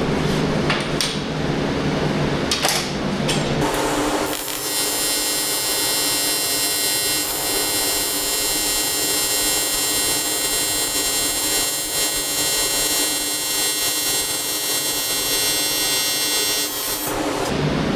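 An AC TIG welding arc on aluminium: a few handling clicks, then about four seconds in the arc strikes and runs as a steady, buzzing hiss for about thirteen seconds before cutting off near the end.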